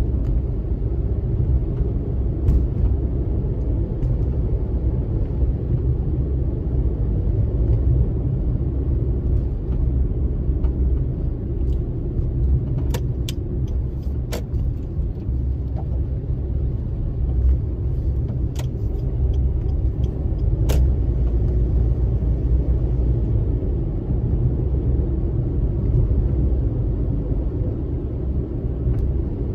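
Car driving on town roads, heard from inside the cabin: a steady low rumble of tyre and engine noise. A few short, sharp clicks come through about halfway through.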